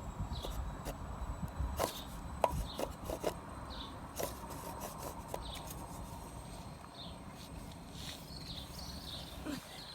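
Plastic toy saw rubbing and scraping back and forth on a piece of wood in uneven strokes, with scattered clicks and knocks of plastic against wood. The toy blade grates without cutting.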